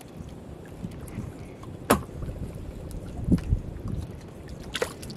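Small wooden boat on a choppy sea: a steady low rumble of water and wind around the hull. A sharp click comes about two seconds in, and a couple of dull knocks follow a little after three seconds.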